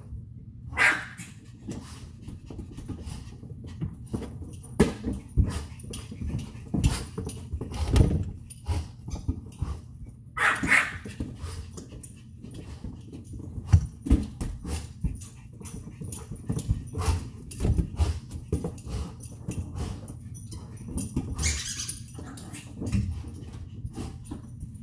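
A large dog and a small dog playing: scuffling and thumping on the carpet throughout, with three short, sharp dog sounds about a second in, about halfway through and near the end.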